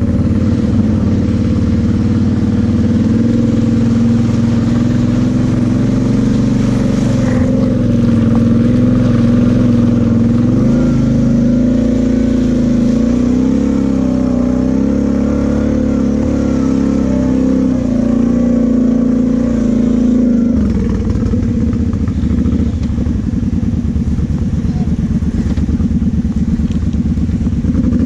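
Kawasaki KFX 700 V-Force quad's V-twin engine running at a fairly steady pitch as the quad is ridden off-road, with a change in its low tone about twenty seconds in.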